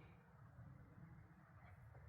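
Near silence, with only a faint low background rumble.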